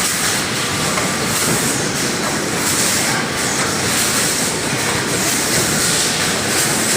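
Rotary vacuum pouch packing machine running: steady mechanical clatter with a hiss that swells and fades about every second and a half.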